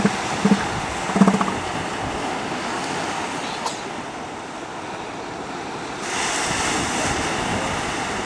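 Steady ocean surf and wind noise on the microphone, growing louder and hissier about six seconds in, with a few short low sounds in the first second and a half.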